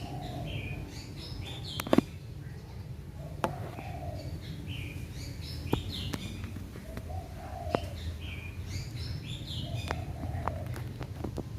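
Mini ceiling fan running with a steady low hum, under a series of high chirps that repeats every three to four seconds and a few sharp clicks.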